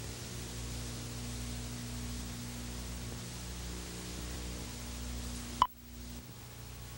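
Hiss and low mains hum of old analogue videotape audio. About five and a half seconds in comes one very short, sharp beep: the countdown leader's sync pop. The hiss dips out for a moment right after it.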